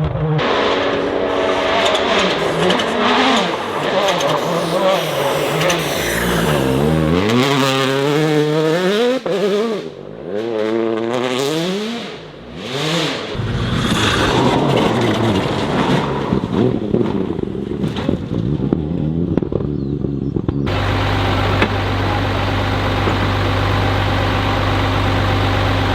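Rally car engines at full throttle, revs climbing and dropping repeatedly through gear changes, with the sound changing abruptly twice where different cars take over; near the end one engine holds a steady note.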